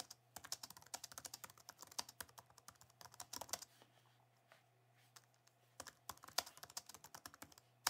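Faint computer keyboard typing: rapid key clicks that pause for about two seconds midway, then resume, over a faint low hum.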